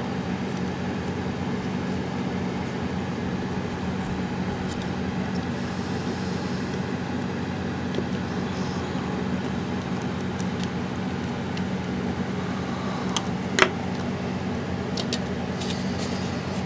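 Steady background hum throughout, with a few small clicks of plastic mouse parts being handled near the end, the sharpest about three-quarters of the way through.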